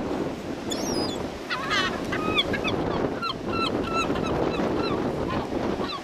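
Gulls calling: a first call about a second in, then a run of short, sharp repeated calls, over a steady rush of wind on the microphone.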